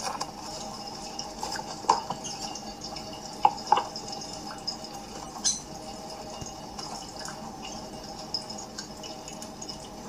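Lovebirds chirping in quick, high, irregular peeps, played through a laptop speaker.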